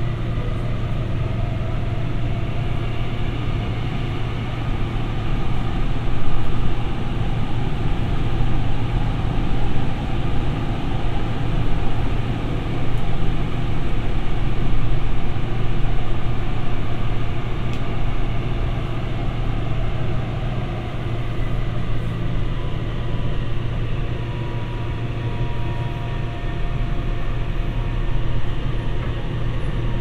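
Busan Metro 2000 series subway car running at speed, heard from inside the car: a steady low rumble of wheels and running gear. A few faint thin tones come in over the second half.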